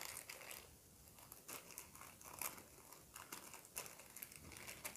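Faint crinkling of a small clear plastic zip bag being handled, a scattering of light crackles, as spare silicone ear tips are taken out of it.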